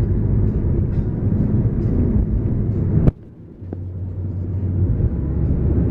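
Steady road and engine noise inside a moving car's cabin, mostly a low rumble. About three seconds in there is a sharp click and the noise drops away suddenly, then builds back up over the following two seconds.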